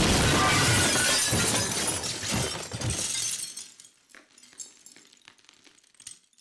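Glass-shattering sound effect: a loud crash that starts abruptly, then falling shards tinkling and thinning out over about three seconds, with a few scattered clinks near the end.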